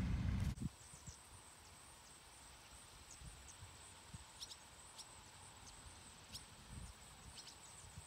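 Faint rural outdoor ambience: scattered short, high bird chirps over a steady faint high hum, with soft low wind rumble on the microphone. A brief low rumble cuts off about half a second in.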